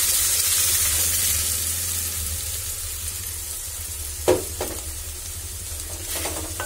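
Onions and curry leaves frying in hot oil in an aluminium kadai, sizzling as a ground masala paste is poured in and stirred with a wooden spatula; the sizzle dies down over the next few seconds. Two short knocks about four seconds in.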